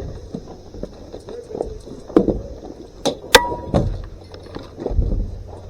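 A few sharp clicks and knocks in the middle, then a low thump near the end, over a steady faint hiss.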